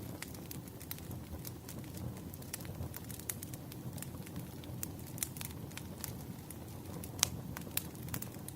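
Wood fire burning: a low steady rumble with frequent sharp, irregular crackles and pops of the firewood, one louder snap a little after seven seconds.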